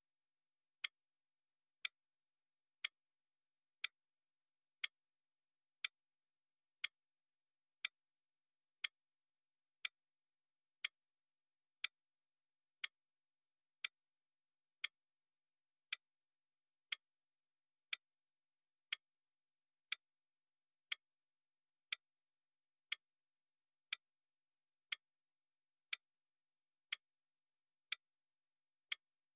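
Clock ticking, one sharp tick every second with silence in between. It is the sound of the exam's countdown timer running down the seconds.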